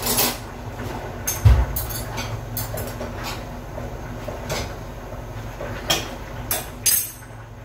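A spoon and small containers clicking and knocking on a tabletop, irregular light clicks with a dull thump about one and a half seconds in.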